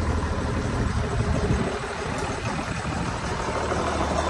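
Tow truck engine idling steadily, with wind buffeting the microphone.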